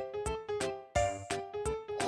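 Background music: a simple melody of short notes that start sharply and fade quickly, several a second.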